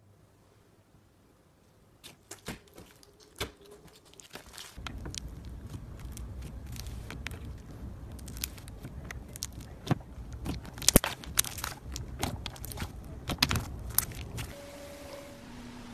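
Hands squishing, poking and stretching bead-filled slime: irregular wet clicks, pops and crackles under a low handling rumble, the sharpest pops about eleven and thirteen seconds in. The first two seconds are nearly quiet.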